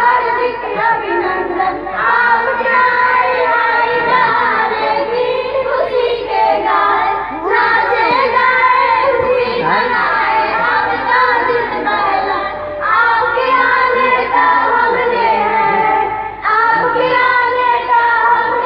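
A group of girls singing a swagat gaan (welcome song) together, with short breaks between phrases.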